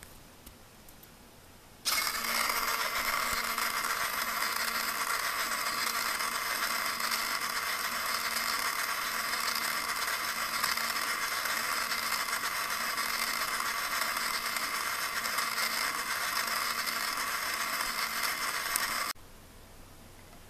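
Small electric motor spinning a pancake disc on a homemade turntable rig, running steadily with a whirring rattle. It switches on abruptly about two seconds in and cuts off abruptly near the end.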